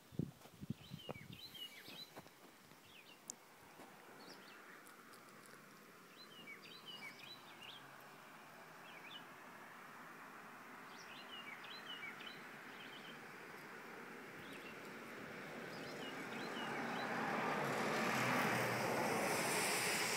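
Small birds chirping off and on, short high chirps scattered through, over a broad rushing noise that swells over the second half and is loudest near the end. A few light knocks come in the first second or two.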